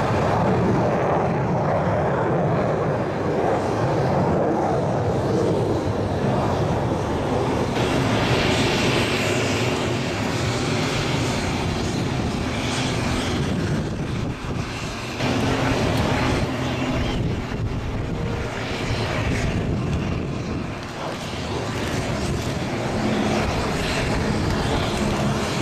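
Military aircraft engines during low passes overhead: jet noise and the drone of World War II propeller fighters, a P-51 Mustang and a twin-engine P-38 Lightning. The sound changes abruptly about 8 and 15 seconds in, and steady engine tones run through the later part.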